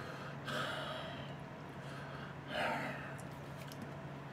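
A man breathing out heavily twice, soft breathy sighs about half a second and two and a half seconds in, over a faint steady low hum.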